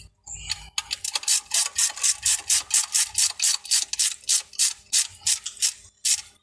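Ratchet wrench with a 3/8 socket clicking rapidly, about five clicks a second, as it tightens the end-cover screws of a forklift starter motor. The clicking starts about a second in and stops briefly just before the end.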